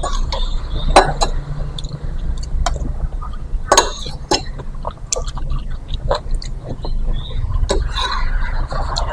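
A spoon clinking now and then against a bowl of meatball soup, with liquid and eating sounds between the clinks.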